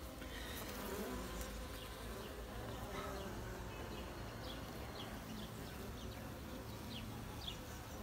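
Honey bees humming steadily on a frame of comb lifted out of the hive.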